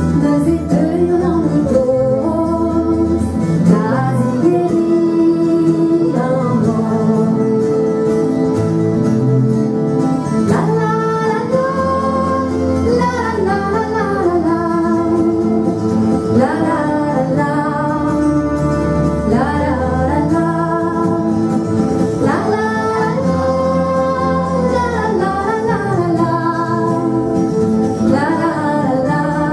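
A woman singing a song in Breton, long held notes with slides between them, accompanied by guitars.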